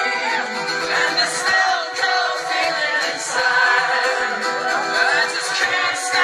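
Live acoustic guitar strummed while a man sings, with little bass in the sound.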